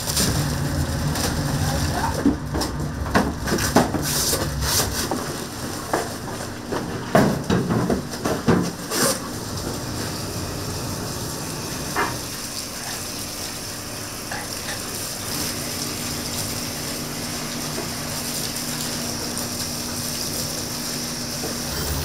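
Restaurant kitchen food preparation: a run of knocks and clatters through the first half, then a steady hiss with an occasional clink.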